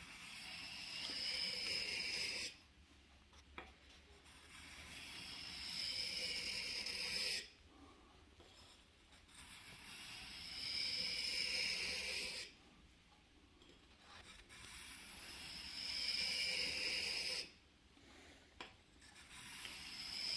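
Knife blade being drawn along a wet sharpening stone in slow, long grinding strokes, each building up over two or three seconds and stopping abruptly, about four in all with a fifth starting near the end. A light tap is heard in two of the gaps between strokes.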